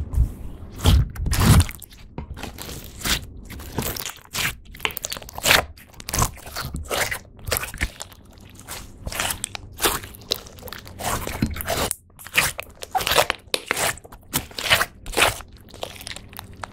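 Hands pressing, stretching and squeezing a large mass of glossy slime studded with small plastic beads, which gives off dense, irregular crackling and squelching as trapped air pops. A few soft thuds come in the first couple of seconds.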